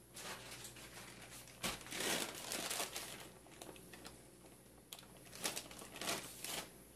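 A packaging bag of white powder crinkling and rustling in three bursts as a spoon is dug into it and a spoonful is scooped out and tipped onto the dough.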